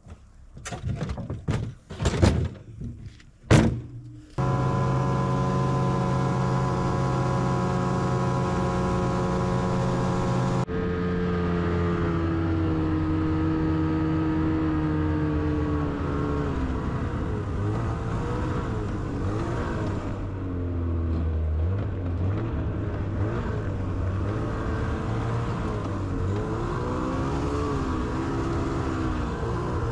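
A few knocks and clatters of gear being handled, then a Ski-Doo snowmobile engine running under way. The engine holds a steady pitch at first, then rises and falls with the throttle.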